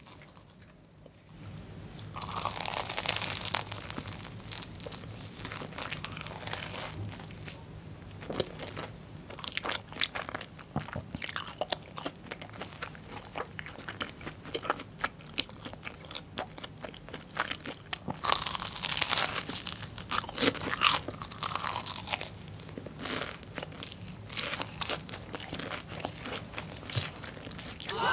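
Biting and chewing a Korean corn dog with a crunchy fried, sugar-coated crust. There are loud crunchy bites about two seconds in and again about eighteen seconds in, with chewing between them.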